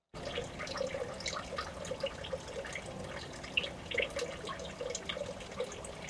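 Water trickling and dripping, with many small irregular drips and splashes over a steady wash; it cuts in abruptly at the start.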